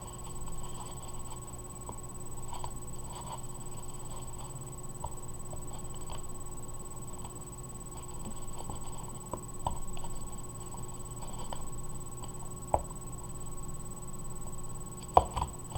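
Sticky glue-and-detergent slime being kneaded and squeezed by hand, giving faint scattered wet clicks and smacks. The slime is still sticky and not yet fully set.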